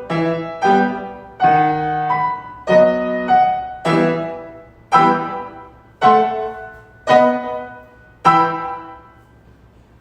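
Solo piano playing the closing bars of a piece: loud full chords struck about a second apart, each ringing and fading. The last chord dies away near the end.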